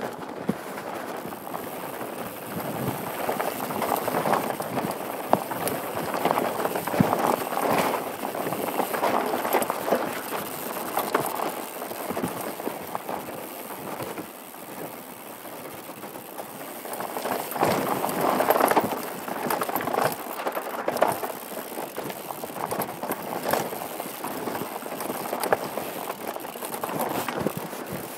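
Mountain bike descending fast over rocky dirt singletrack, heard from a helmet-mounted camera: tyres rolling over dirt and loose stones with constant rattling knocks and clatters from the bike, under a rush of wind. It gets louder twice, on rougher, faster stretches.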